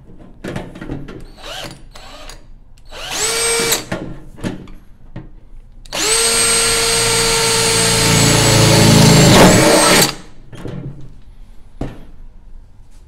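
Cordless drill boring through the sheet-steel wall of an ammo can: a short run of about a second, then about four seconds of steady drilling with a constant motor whine that stops abruptly, with light handling knocks around it.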